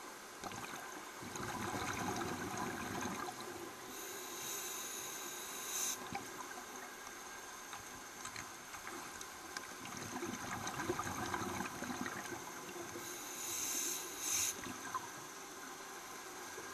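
Scuba diver breathing through a regulator underwater: bubbly exhalations about a second in and again around ten seconds, each followed by a short high hiss of air.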